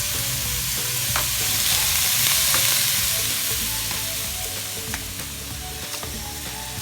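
Cut squash and sweet potato sizzling in a hot pot: a steady hiss that swells about two seconds in and then eases off, with a few light clicks of a utensil against the pot.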